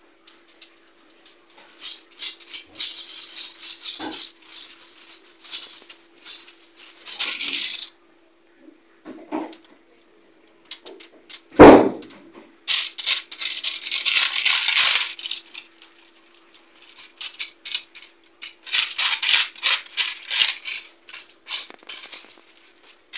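Aluminium foil lining a baking tray crinkling and rustling in irregular bursts as a hand rubs cooking oil over it. One sharp knock about halfway through is the loudest sound, over a faint steady hum.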